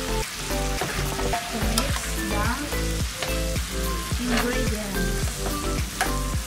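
A stir-fry of beef and vegetables sizzling in a wok while it is stirred with a metal spoon. Background music with a steady beat runs under it.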